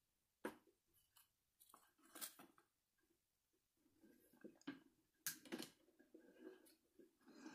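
Near silence: room tone with a few faint, scattered clicks and rustles.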